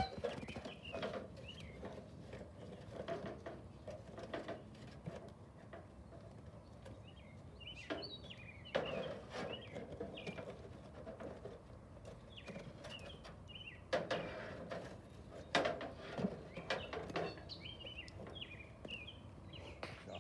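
Birds chirping again and again, over a wood fire crackling in a metal fire pit, with scattered sharp pops.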